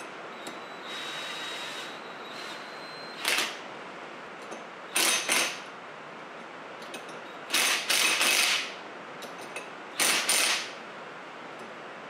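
Cordless power driver run in four short bursts, the third the longest, turning down the bolt of a flywheel puller seated on an outboard motor's flywheel.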